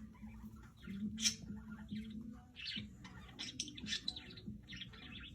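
Pet parrot giving short, sharp chirps and squawks: one loud call about a second in, then a quicker run of chirps through the second half.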